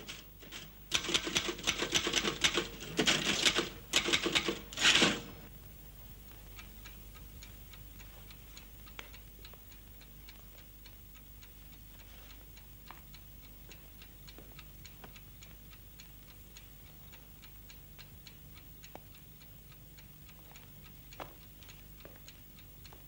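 A loud burst of rapid clattering lasts about four seconds. After it, a clock ticks steadily and faintly over a low hum.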